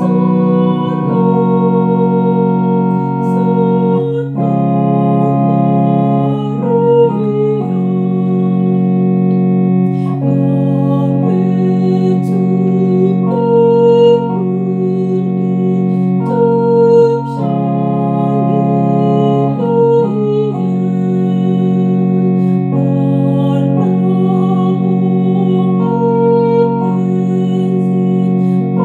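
Electronic organ playing a slow hymn tune in sustained chords, each chord held for a second or two before moving to the next.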